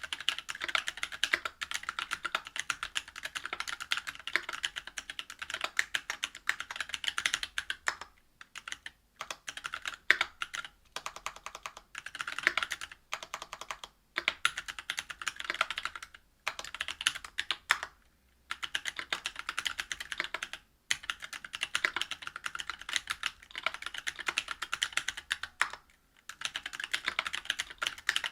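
Fast typing on a mechanical keyboard with stock Cannonkeys Lilac Tactile 65g switches in a brass plate, under GMK keycaps. It comes as dense bursts of keystrokes broken by several brief pauses.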